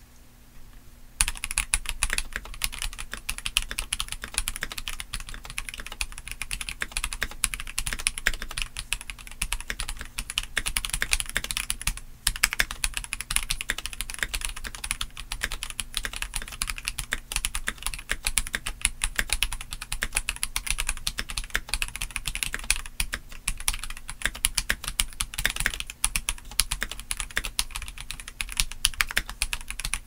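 Typing on a stock Keychron C3 Pro mechanical keyboard: unlubricated tactile Keychron Brown switches on a steel plate, under double-shot ABS OEM-profile keycaps. Quick, continuous keystrokes start about a second in, with a brief break near the middle.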